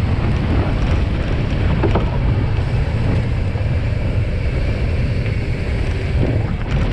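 Wind buffeting the microphone of a bike-mounted camera as a mountain bike rolls fast over a concrete path, a steady loud rush with its tyres humming underneath.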